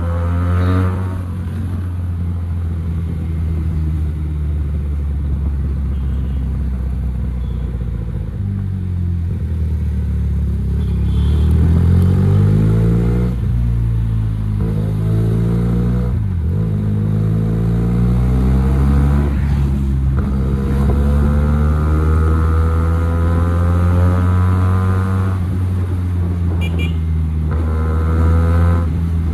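Motorcycle engine through a raw, open exhaust, heard from the rider's seat while riding: the engine note climbs as it accelerates and drops back as the throttle eases and gears change, several times over.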